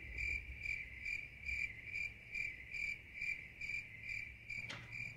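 A steady high-pitched chirping tone that pulses about two or three times a second, with a single knock near the end.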